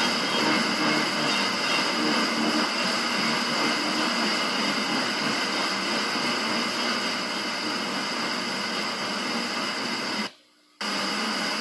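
FM radio hiss and static from a car receiver on 90.9 MHz as the aircraft-scattered signal of the distant station fades out, with faint traces of the station's audio in the first few seconds. The hiss cuts out briefly near the end, then resumes.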